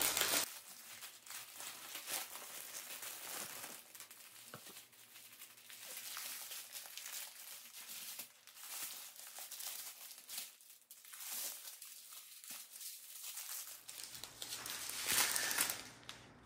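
Thin plastic bags of diamond painting drills crinkling as a long connected strip of packets is unfolded and handled, in irregular rustles with a louder stretch near the end.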